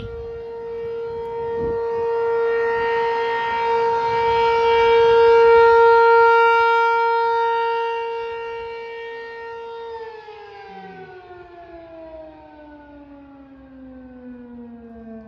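Outdoor tornado warning siren sounding during its monthly test: a steady, very loud tone that swells and fades, then from about ten seconds in winds down, its pitch falling steadily.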